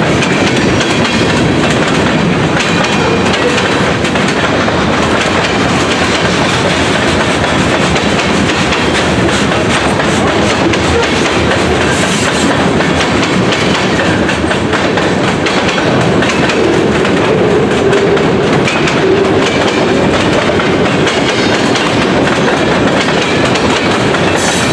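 CN manifest freight train's cars rolling past, a steady loud rumble with the clickety-clack of wheels over rail joints.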